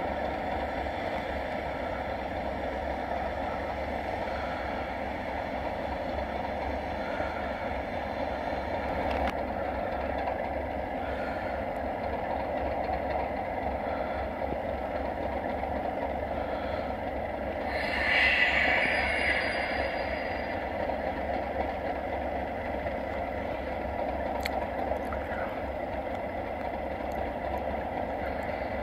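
A pair of Class 37 diesel locomotives with English Electric V12 engines running at idle, a steady low drone. A brief louder, higher-pitched noise rises over it about eighteen seconds in.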